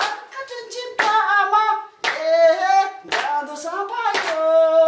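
A voice singing held, wavering notes, each phrase set off by a sharp hand clap about once a second.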